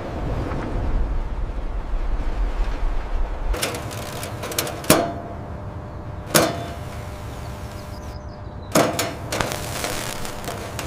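A low rumble, then several sharp metallic clanks with a ringing tail, spaced one to two seconds apart, with rushing noise between the later hits.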